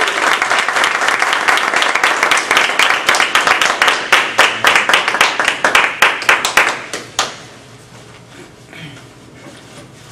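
A small audience applauding. The clapping thins to a few separate claps and stops about seven seconds in.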